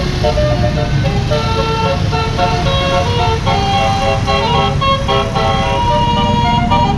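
A bus's Basuri 'telolet' musical horn playing a quick melody of short tooted notes, over the low rumble of the bus's engine.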